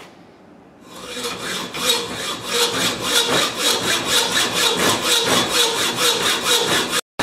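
Hacksaw cutting through a steel bolt clamped in a vise, with quick, even back-and-forth strokes of the blade rasping on the metal. The strokes begin about a second in.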